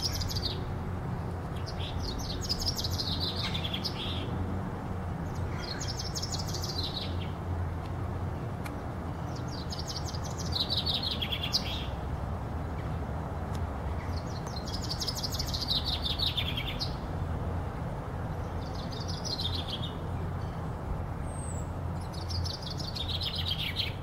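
Male common chaffinch singing: a string of songs, each about two seconds long and falling in pitch, repeated every few seconds, about seven times in all, over a steady low rumble.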